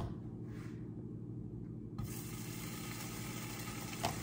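Butter sizzling in a hot frying pan: a steady hiss that starts about two seconds in. There is a light knock at the start and another near the end.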